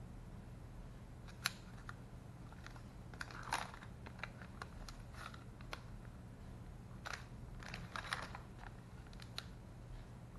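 Small plastic component bag being handled and opened: irregular crinkles and light clicks, with a sharp click about a second and a half in and louder rustling around the middle and after seven seconds.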